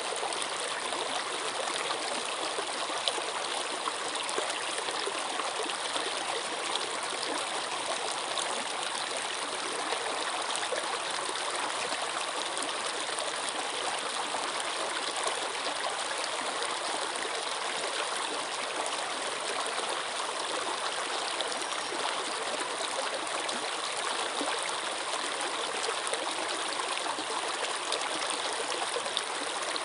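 Water running steadily over rocks in a stream, a continuous rushing with small splashes and gurgles.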